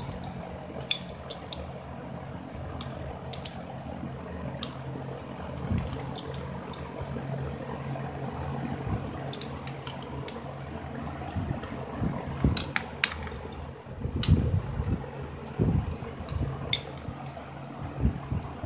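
Adjustable wrenches clinking against a brass union fitting on an AC refrigerant line as it is tightened: scattered sharp metal clicks and a few duller handling knocks, over a steady low hum.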